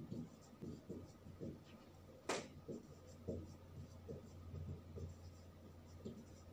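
Whiteboard marker writing out an equation in a run of short, faint strokes, with one sharper click about two seconds in. A low steady hum sits underneath.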